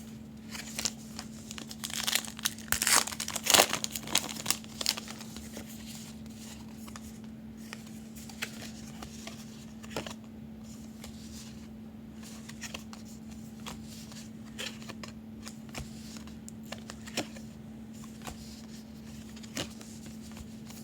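A foil baseball-card pack wrapper being torn open and crinkled for a few seconds, followed by scattered light clicks and taps as the cards are handled. A steady low hum runs underneath.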